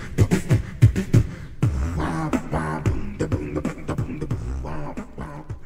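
Human beatboxing: mouth-made kick and snare strokes keep a steady beat, and about a second and a half in, pitched vocal tones join the beat.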